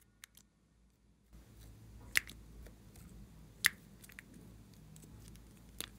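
Sharp plastic clicks from handling two small lip gloss tubes while the applicator cap is worked off one of them. There are two loud snaps about two and three and a half seconds in and a smaller one near the end.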